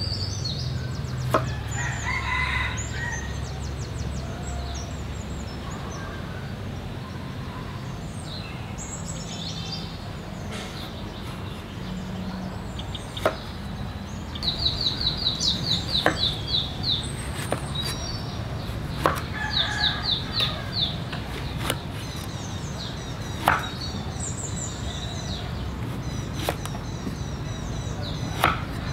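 Cleaver chopping on a wooden cutting board in single sharp chops a few seconds apart, cutting eggplant near the end. Birds call in the background, with two short runs of rapid high chirps midway.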